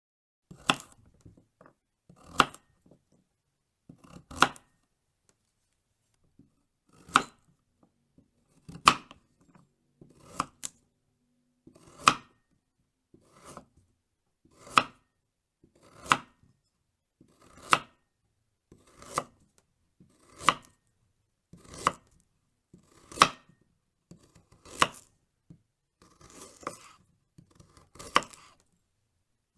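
Knife cutting through a raw carrot in a slow series of separate crisp cuts, about one every one and a half seconds, some eighteen in all.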